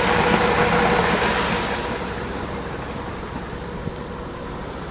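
Farm machinery running, a steady hum with hiss, which falls away to a lower, duller level about two seconds in.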